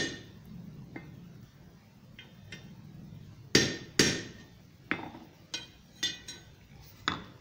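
Blacksmith's hammer tapping a forged scroll on the anvil face to correct its curl, each tap with a short metallic ring. A few faint taps come first; from about three and a half seconds in come louder strikes roughly half a second apart, the first two the loudest.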